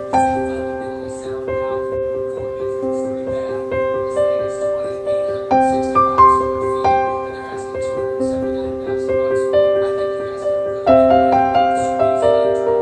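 Background piano music: slow, with held notes and chords, a new note starting about every second.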